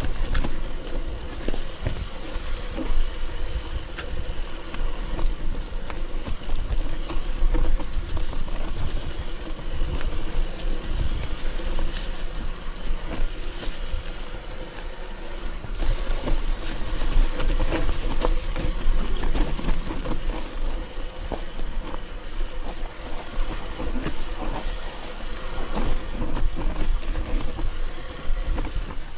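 Mountain bike descending a rough dirt forest trail, heard from the rider's camera: tyres rolling over dirt and roots, with constant rattling and knocking of the bike over bumps and a deep rumble of wind on the microphone.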